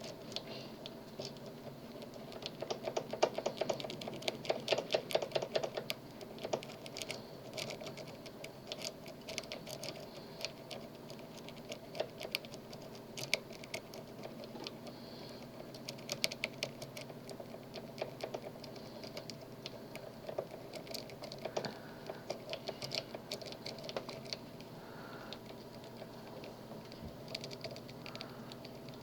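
Rake pick scraping in and out of a Master Lock M1XDBLF padlock's keyway under tension, making rapid bursts of light metallic clicks as it rattles the pins, densest about three to six seconds in. The raking attempt has not yet opened the lock.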